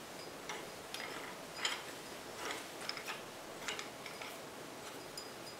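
Tapered locking nut of a Demag P hoist motor brake being turned by hand on the threaded shaft: faint, irregular metallic clicks and scrapes.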